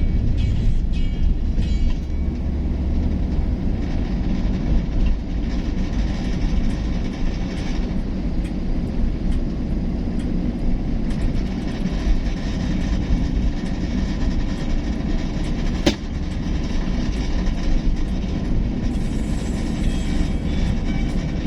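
Steady low rumble of a vehicle on the road, with a single sharp click about sixteen seconds in.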